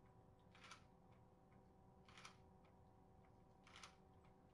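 DSLR camera shutter firing three times, short sharp clacks about a second and a half apart, faint over a steady low hum.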